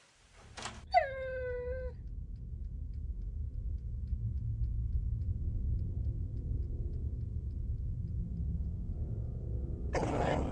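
A cat's yowl about a second in, falling in pitch over about a second, just after a sharp click. Under it a low rumbling drone slowly builds, and a loud harsh burst of noise breaks in near the end.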